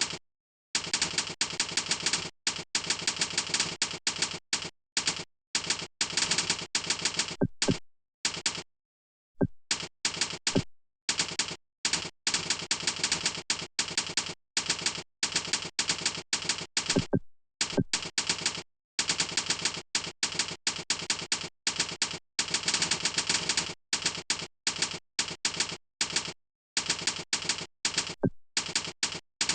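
Fast typing on a keyboard: rapid runs of key clicks, broken every few seconds by short pauses of complete silence.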